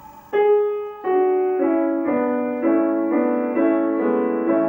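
Background piano music starting up: a slow line of notes struck about twice a second, each one ringing on under the next.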